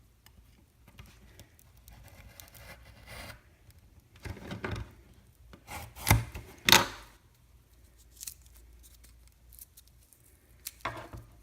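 Cardboard tube of a Whistling Pete firework being cut open: quiet scraping and rubbing, with two sharp knocks about half a second apart a little over halfway through.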